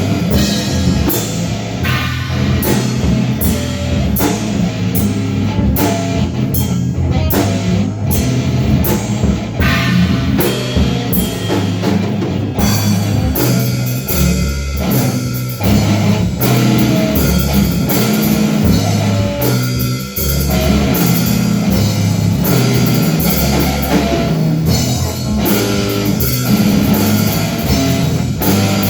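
Rock music with drum kit and electric guitar, loud and with a steady beat.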